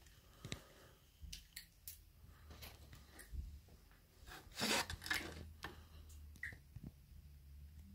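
Scattered faint scuffs, clicks and rubbing, with one louder scrape about halfway through, in a small stone vault.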